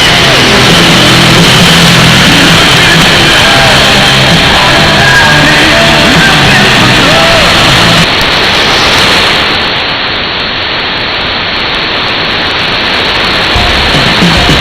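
Music from a shortwave AM broadcast on 7300 kHz, buried in heavy static and received noise. About halfway through, the music fades out of the noise and only the hiss of the received signal remains.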